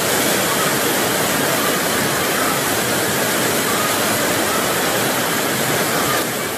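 Floodwater rushing in a fast, muddy torrent down a street: a loud, steady rush of water.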